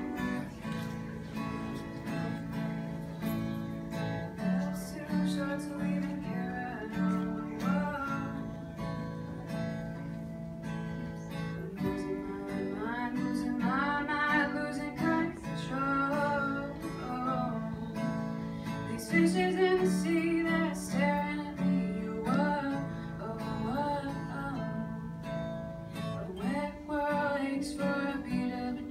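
A song on strummed acoustic guitar, with a voice singing a melody over it in phrases from about the middle onward.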